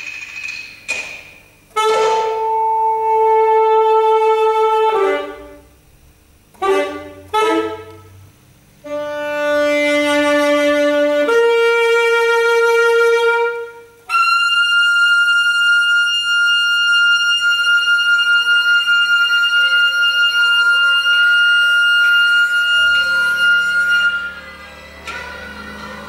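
Solo saxophone playing short stabbed notes and held tones of a few seconds each, then one long high note held for about ten seconds. A low drone comes in near the end as the note stops.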